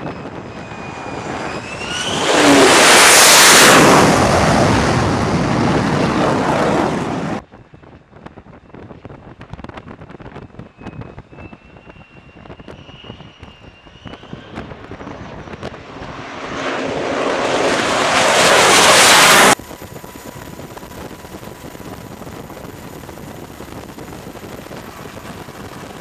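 F-35C fighter's single F135 turbofan jet engine on carrier approach: a high whine rising into a loud roar as the jet closes in, heard twice, each time cut off abruptly. After that, a steady even hiss with a faint hum.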